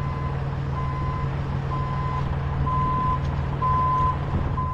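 Backup alarm on a forklift beeping steadily, about one beep a second, over an engine's steady low hum.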